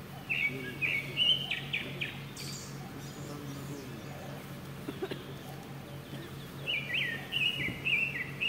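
A songbird singing two bursts of quick, stepping chirps, one at the start and another near the end, over a steady low hum.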